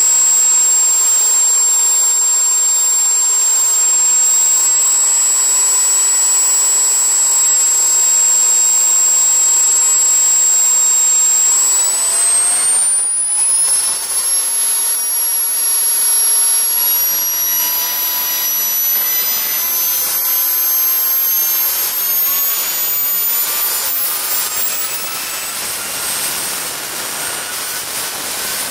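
Home-built 66 mm model jet turbine engine running with a high whine over a rushing noise. About twelve seconds in, the whine climbs quickly in pitch, then keeps rising slowly as the turbine speeds up.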